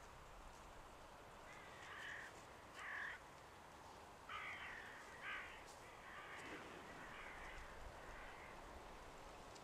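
A crow cawing, a loose series of about seven short, harsh calls spread over several seconds.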